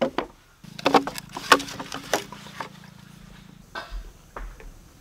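Dry bamboo poles clattering and knocking together as they are picked up and handled: a string of sharp, hollow wooden knocks, loudest in the first half and fainter later. A low steady hum sounds under the knocks and stops about three and a half seconds in.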